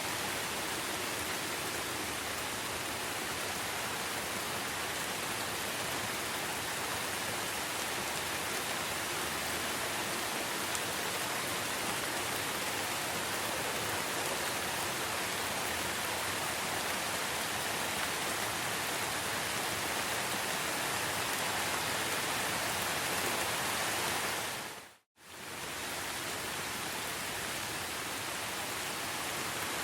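Steady rain falling, an even hiss. About 25 seconds in, it fades out to silence for a moment and then fades straight back in.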